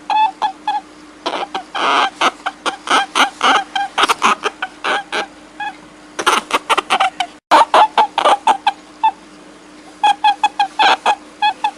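Rapid runs of short, pitched animal calls, several a second, over a steady low hum. The calls pause for about half a second before six seconds in, break off abruptly about seven seconds in, then pause again for about a second just after nine seconds.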